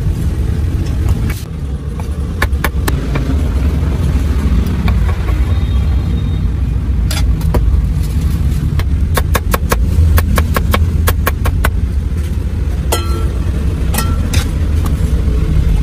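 Meat cleaver chopping roast pork and duck on a wooden chopping block: scattered single chops, then a quick run of about ten chops around the middle, and a few more near the end. Under it runs a steady low rumble.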